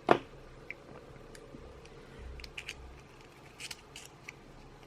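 A sharp knock near the start, then a few faint small clicks and taps: a hot soldering-iron tip being unscrewed and swapped for a thinner one.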